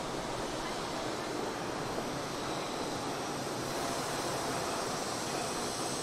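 Steady rushing outdoor noise, like wind, with no clear engine or horn. Faint thin high tones come in about halfway through.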